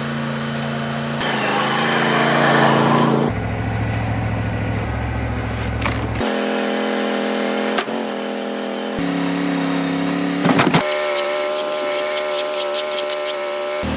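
Wood-Mizer LT40 portable band sawmill running, heard in a string of abrupt cuts: its engine and machinery note changes from clip to clip. Near the end comes a steady pitched whine with a rapid, regular ticking.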